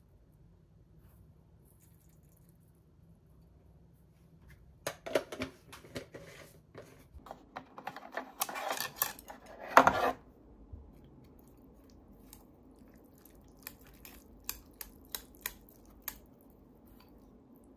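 Chopsticks and a metal spoon clattering against a wooden tray and a ceramic bowl: a busy run of clicks and knocks from about five to ten seconds in, the loudest knock near ten seconds, then a few light taps on the bowl while noodles are mixed.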